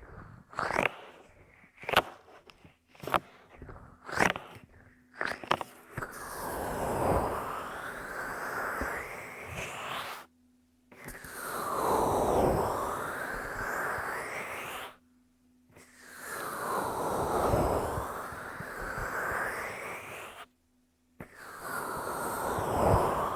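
Close-up binaural ASMR mouth and breath sounds: a string of short, sharp smacks about once a second, then long, breathy blows into the dummy-head's ear microphone, each about four seconds, with brief silences between them.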